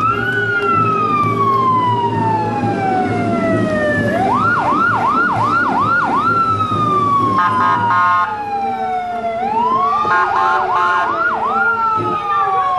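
Police siren sounding in long, slow falling sweeps, twice broken by a run of four or five quick, short whoops before winding down again.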